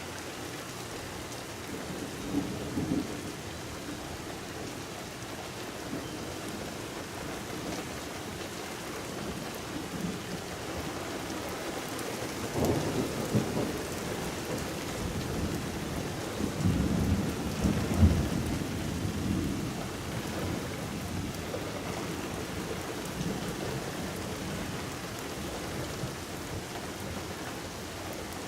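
Steady rain falling during a thunderstorm, with rolls of thunder rumbling low about two seconds in, again about twelve seconds in, and most loudly from about sixteen to nineteen seconds in.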